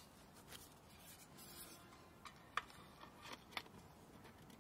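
Faint handling noises: a few light clicks and rustles as plastic air-cushion packing in a cardboard box is moved and a tea tin is lifted out. The clearest click comes about two and a half seconds in.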